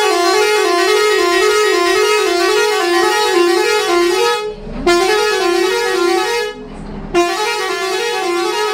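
A multi-tone musical truck horn plays a fast, repeating tune of stepping notes. It breaks off twice around the middle and starts up again each time.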